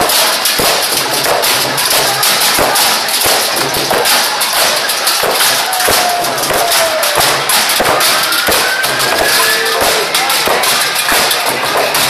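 Parade percussion band playing drums and drum-mounted cymbals in a dense, fast rhythm, with crowd voices underneath.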